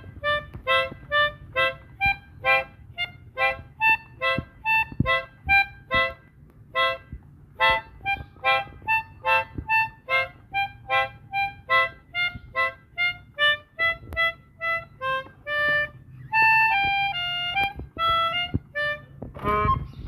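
Pianika (melodica) playing a quick tune of short, separate notes, about two a second, copying a 'telolet basuri' bus-horn melody. Near the end it plays a few longer held notes, some with two pitches together.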